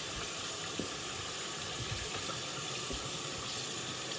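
Kitchen faucet running steadily into a stainless steel sink while raw chicken is rinsed by hand under the stream.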